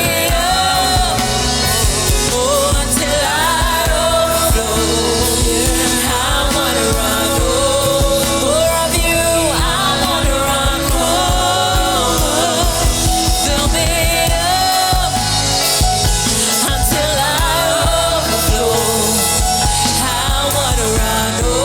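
Gospel worship song: voices singing a melody over steady instrumental backing with a regular beat.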